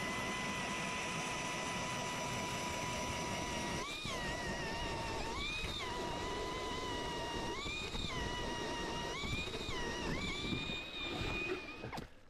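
Cordless drill turning an ice auger to bore a fishing hole through lake ice. A steady motor whine that briefly speeds up about four times, then stops near the end.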